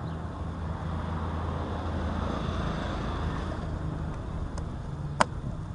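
Steady low outdoor rumble with a wash of noise that swells and fades over a couple of seconds, then a single sharp click near the end.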